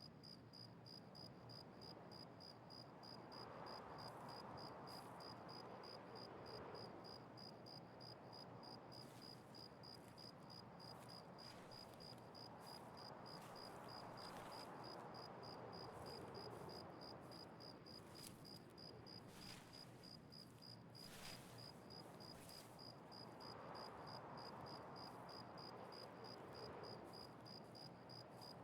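Near silence with a cricket chirping steadily, about two chirps a second, and a few faint clicks about two-thirds of the way through.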